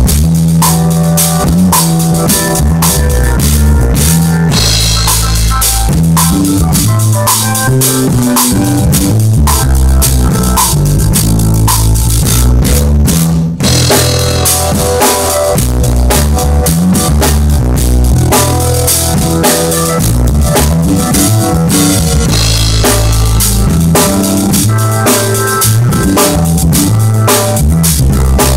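Drum kit played hard with kick, snare and cymbals, along with music that carries bass notes and chords. Everything stops for a split second about halfway through, then comes back in.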